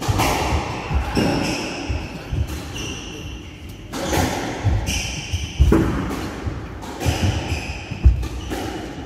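Squash rally: the ball smacking off rackets and the walls at irregular intervals, with sharp squeaks from the players' shoes on the wooden court floor and their footfalls between the hits.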